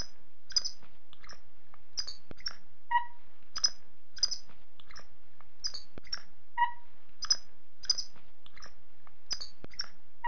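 High-pitched chirps and short whistles in a sequence that repeats exactly, about every three and a half seconds, over a steady hiss, like a looped recording of animal calls.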